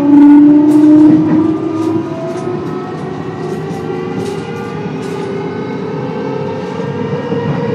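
JR 223 series electric train's Hitachi IGBT-VVVF inverter and traction motors whining under power, several tones rising slowly in pitch as the train gathers speed, over running rumble. The whine is loudest in the first second or so, then eases.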